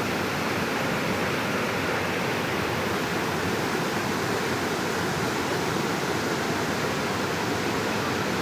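Flash-flood water rushing down a swollen stream: a steady, unbroken rush of water.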